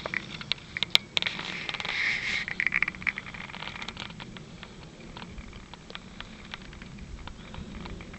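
Irregular scratching and clicking close to the microphone, busiest in the first three seconds and thinning out after, over a faint steady low rumble.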